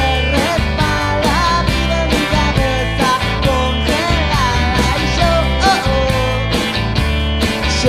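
A rock band playing a song with guitar.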